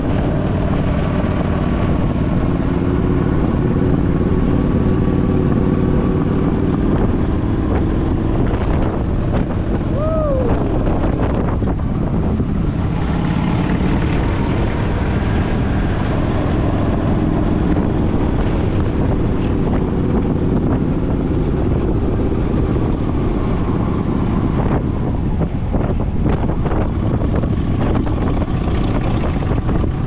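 Motorcycle riding at road speed, its engine running under heavy wind rush on the microphone. A short falling tone sounds about ten seconds in.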